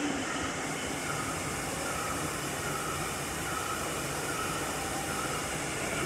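Steady rushing background noise of a large indoor rainforest exhibit, with a faint short chirp repeating a little faster than once a second.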